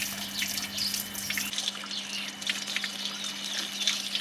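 Water running and splashing at a tubewell while a German Shepherd drinks from it, in short irregular splashes.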